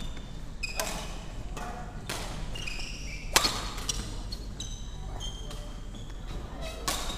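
Badminton rally: rackets smacking the shuttlecock in a series of sharp hits, the loudest about three and a half seconds in, with short high squeaks of court shoes on the wooden floor between them.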